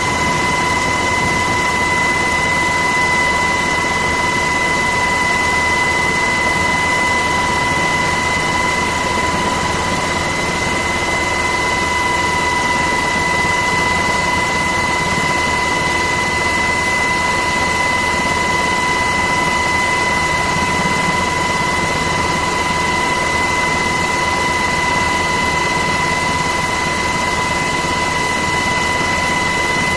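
Steady helicopter cabin noise: a constant turbine and gearbox whine over an even rushing rumble.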